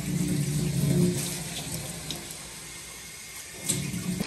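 Water running from a tap and splashing into a glass jar as it fills. It is louder for the first second or so, softer after that, with a short louder splash near the end.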